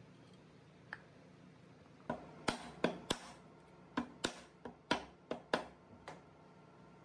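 About ten sharp knocks in quick, irregular succession over some four seconds, after a single faint click about a second in.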